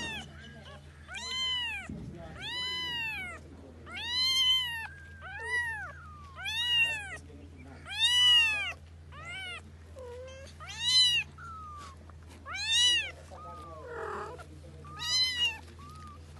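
A very young kitten meowing over and over: about a dozen high-pitched cries, each rising and then falling in pitch.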